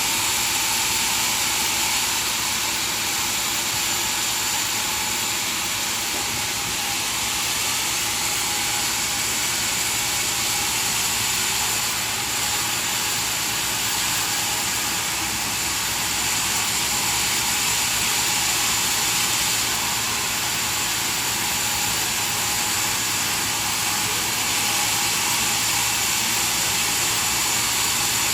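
Sawmill saw running through wood, a steady high-pitched hiss with a faint whine that holds unchanged throughout.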